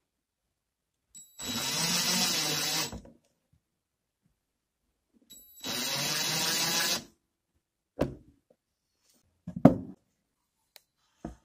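Power drill-driver running in two bursts of about a second and a half each, driving a screw into a plastic wall anchor. Then a few short knocks.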